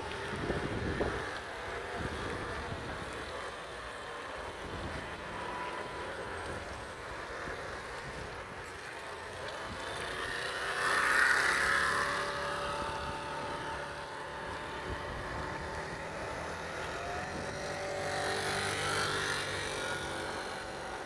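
Street traffic noise, with a food-delivery motor scooter passing close about halfway through, the loudest moment, and another delivery scooter going by near the end.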